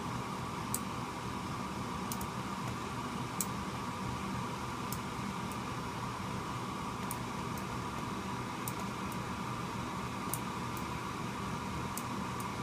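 Steady mechanical hum, fan-like, with a tone near 1 kHz, and a dozen or so small sharp clicks scattered through it.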